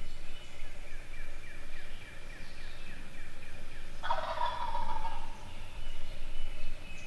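A wild turkey gobbler gobbles once, about four seconds in: a loud, rattling call lasting about a second. Other birds sing faintly around it.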